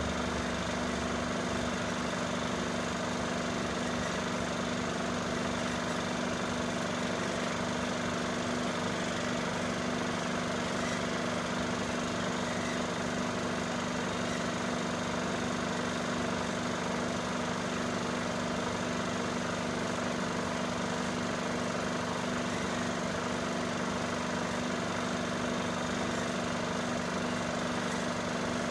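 Film projector running: a steady mechanical whirr with an even hum that does not change.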